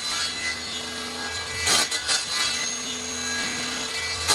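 Homemade table saw, a circular saw mounted under a table, running steadily with its motor hum, and its blade cutting into small pieces of plywood in short bursts about two seconds in and again near the end.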